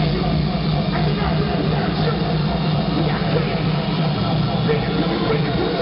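Hardstyle music played loud over a festival stage's sound system, heard from inside the crowd with crowd noise mixed in. A steady low drone sits under it and no clear beat comes through.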